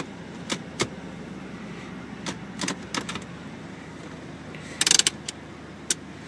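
Clicks and clacks of a 2007 Dodge Nitro's automatic gear shifter and handbrake lever being handled, over a steady low engine idle; the loudest rattle of clicks comes about five seconds in.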